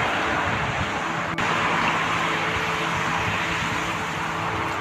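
Steady city traffic noise, a constant hiss with a faint low engine hum passing through the middle and a single brief click.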